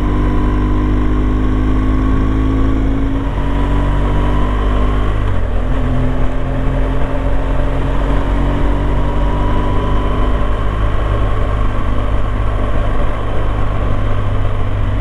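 BMW R1200GS Adventure's boxer-twin engine running under way, heard through a helmet microphone together with a steady rumble of wind and road. The engine note sags for a couple of seconds and picks up again about five seconds in, then holds steady.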